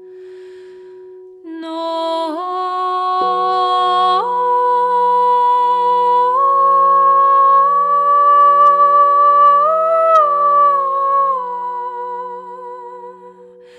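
A woman sings a wordless melody over the steady ringing of crystal singing bowls. Her voice comes in about a second and a half in, climbs in steps to its highest held note about ten seconds in, then falls and fades just before the end; a low, wavering bowl tone starts about three seconds in.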